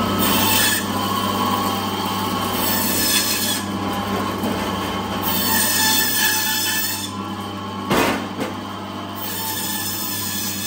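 Electric band saw running with a steady hum, its blade rasping through a whole large fish in several separate passes. A single sharp knock comes about eight seconds in.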